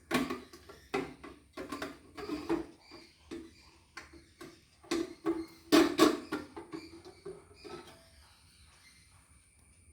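Plastic parts of a mixer grinder's food-processor attachment clicking and knocking as its cover is handled and fitted into place, a string of sharp taps that stops near the end.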